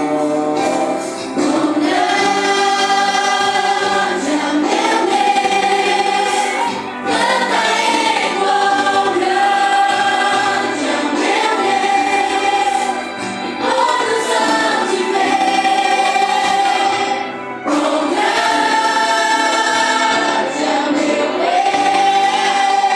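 A group of voices singing a Christian worship song together, in long held phrases with brief breaks between them every few seconds.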